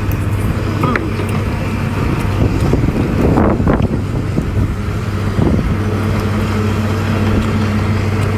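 A steady low engine hum, like a boat's motor idling, under close-up eating sounds: slurping meat from a clam shell and chewing mouthfuls of rice, with a few sharp slurps about a second in and again around three and a half seconds.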